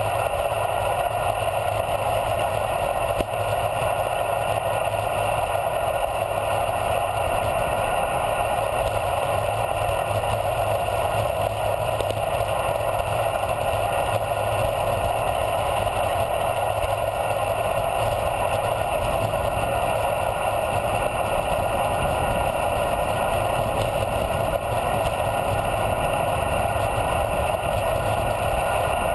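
Steady rush of wind and tyre noise from a road bicycle descending fast, heard on a camera mounted on the bike.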